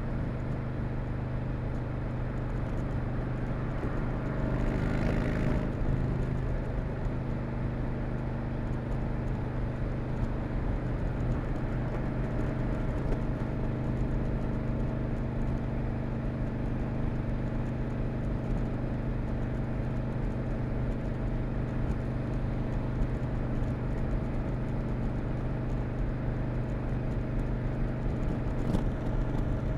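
Stock 2020 Harley-Davidson Low Rider S with its Milwaukee-Eight 114 V-twin running at a steady cruise on the stock exhaust, with road noise. A brief rush of noise comes about five seconds in, and there is a short click near the end.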